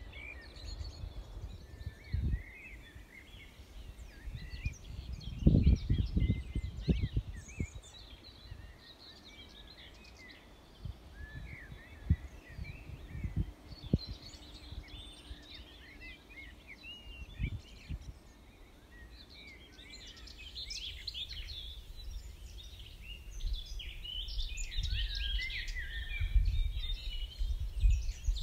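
Dawn chorus of many songbirds singing together, the song growing denser in the last third. Gusts of wind rumble on the microphone, loudest about five to seven seconds in.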